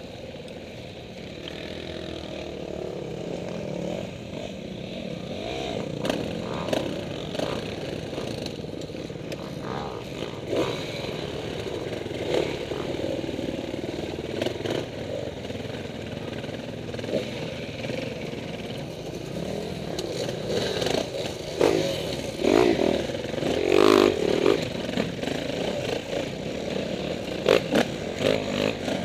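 KTM 450 single-cylinder four-stroke dirt bike engine running and revving up and down as the bike is ridden off-road. Clattering knocks join in and grow more frequent and louder over the last third.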